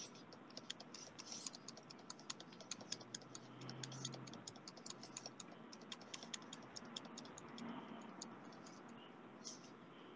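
Faint, rapid, irregular clicking of a computer keyboard being typed on, several keystrokes a second, thinning out toward the end.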